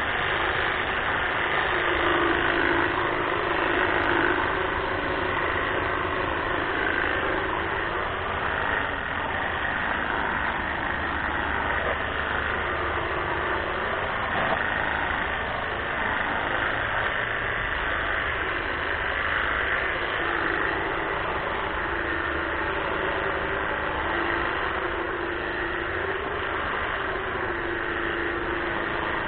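Greenworks battery-powered hedge trimmer running steadily, its motor and reciprocating blades buzzing, the tone wavering as the blades cut through azalea branches.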